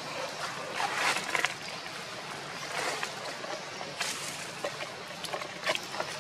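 Steady outdoor background noise, a soft even hiss, with a few brief rustles and scattered light clicks.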